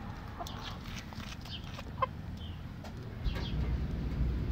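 Young chickens clucking softly with short, high calls while they eat, with a few sharp clicks among them. A low rumbling noise joins about three seconds in.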